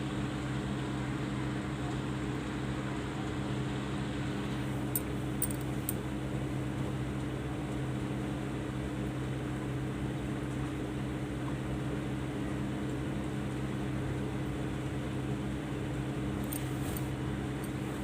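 Steady machine hum, a low drone with a hiss over it, unchanging throughout, with a few faint ticks about five seconds in and again near the end.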